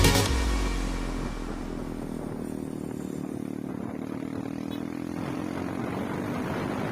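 Motorcycle engine running steadily at an even pitch while riding. The tail of a music track dies away in the first second or so.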